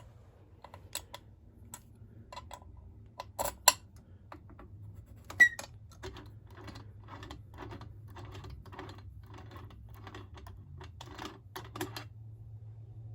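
Scattered sharp clicks and two louder knocks, then a regular run of soft taps about two a second, over a low steady hum.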